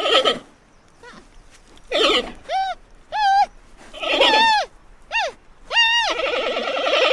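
Giant panda bleating: a series of about seven short calls, each rising and then falling in pitch. The series ends in a longer, wavering bleat.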